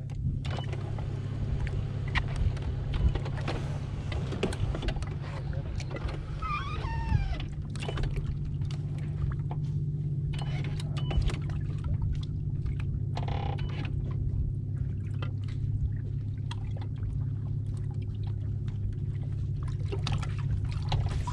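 A bass boat's electric trolling motor giving a steady low hum, with scattered clicks and knocks around the boat.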